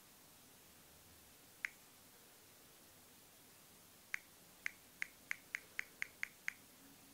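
Sharp clicks from taps on an LG L40 smartphone's touchscreen: a single click as the Calculator app is opened, then, after a pause, nine quick clicks speeding up as digits are keyed in.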